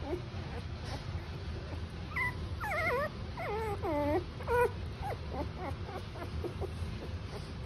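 Young puppy whimpering: a run of five or six high whines between about two and five seconds in, several falling in pitch, with fainter short squeaks before and after.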